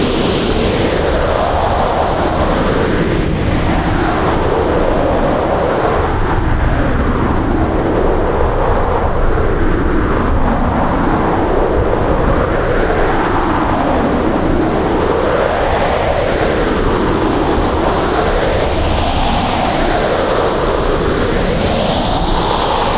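Hurricane-force wind howling over a steady deep rumble, its pitch rising and falling in gusts every few seconds.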